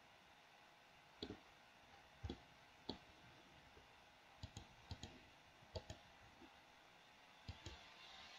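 Faint clicks of a computer mouse's buttons, about a dozen spread irregularly, several in quick pairs, over a low steady hiss.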